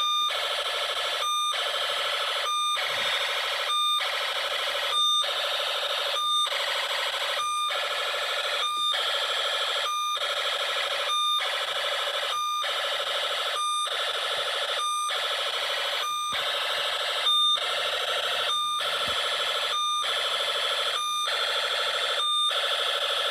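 Emergency Alert System–style alarm tone: a harsh electronic buzz pulsing about once every 1.25 seconds, each pulse split from the next by a short gap with a brief high beep.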